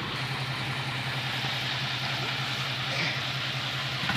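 Diesel engine of a six-wheel Isuzu Deca dump truck, the 195 hp version, running steadily at low speed with a rapid, even pulse.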